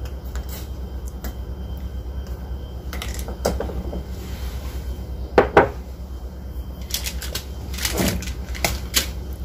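Scattered light clicks, taps and rustles of kitchen handling as salt is pinched from a small container and a plastic seasoning sachet is picked up beside a stone mortar, over a steady low hum.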